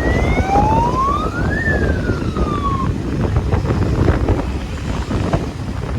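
Electronic police-style siren fitted to a motorcycle, sounding one wail that rises for about a second and a half, then falls and stops about three seconds in. A steady low rumble of riding noise runs underneath.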